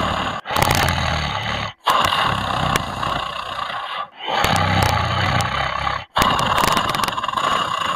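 Pig snoring in its sleep: long, rough snores of about two seconds each, one after another, with short breaks between them.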